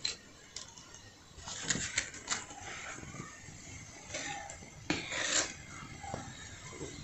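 Metal spoons scraping and knocking against a cast-iron pot and each other while scooping stiff peanut-and-rapadura candy, an irregular run of short sharp scrapes and clicks.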